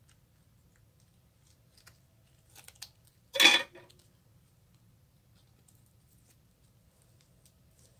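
Glossy slime being worked by hand: a few faint sticky crackles, then one short, loud squelch about three and a half seconds in.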